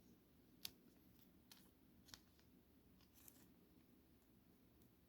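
Near silence with a few faint, short ticks and rustles of trading cards being handled.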